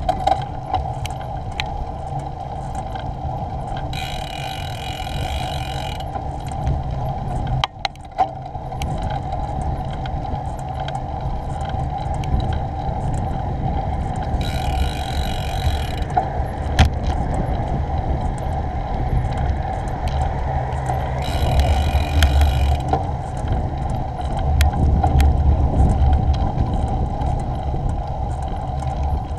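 Riding noise from a bicycle on a tarmac path, picked up by a handlebar or helmet camera: a steady low rumble of wind and tyres, with three short spells of a higher buzzing hiss about four, fifteen and twenty-one seconds in.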